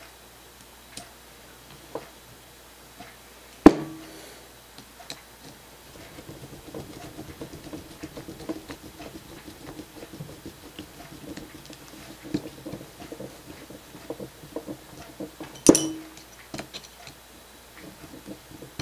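Hex driver turning a small screw into the plastic steering knuckle of a scale RC truck axle: faint rubbing and small ticks as the screw threads in. Two sharp clicks of metal on parts, one loud about four seconds in and another near the end.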